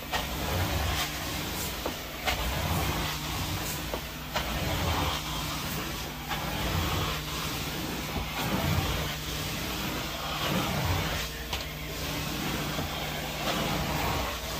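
Carpet steam-cleaning (hot water extraction) machine running with a steady low hum, its suction rushing in short surges every second or two.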